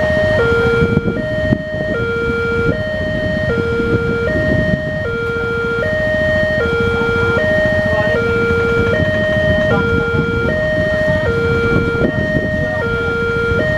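Railway level-crossing warning alarm sounding a two-tone signal, switching back and forth between a higher and a lower tone about once a second, over low traffic rumble. It is the crossing's warning that a train is approaching, sounding while the barriers are down.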